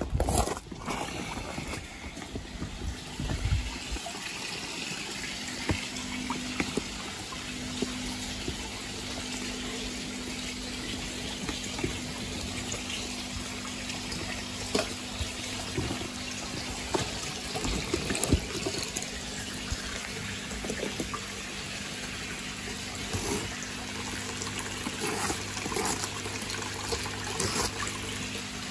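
Steady running, trickling water with a low steady hum underneath, and scattered light clicks and rustles of handling.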